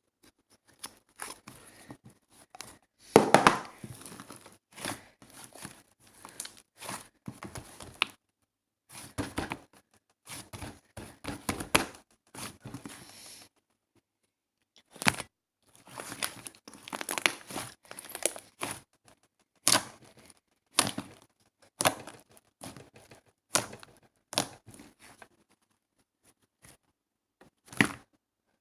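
Irregular crinkling and tearing sounds in bursts, with a few short pauses, like a crinkly material being handled and torn.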